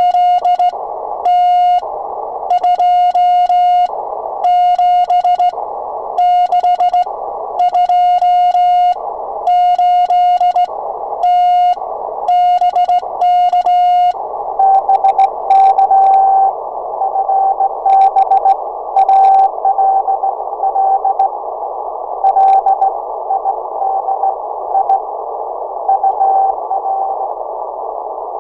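Morse code keyed on a sideswiper (cootie) key, heard as the Icom transceiver's sidetone: a clean, steady beep switching on and off in groups, with receiver hiss in the gaps. About halfway through the sending stops and the radio goes to receive: a fainter Morse reply keyed within a steady band of hiss.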